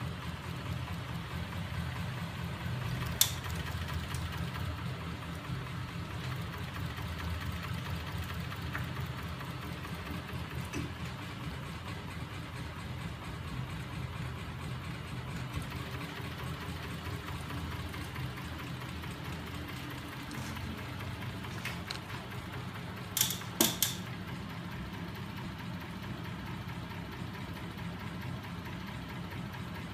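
Home-built magnet-driven crank mechanism running on small 12 V DC electric motors: a steady low hum and mechanical rattle from the motors and moving parts. A sharp click sounds about three seconds in, and a quick run of three louder clicks comes about three-quarters of the way through.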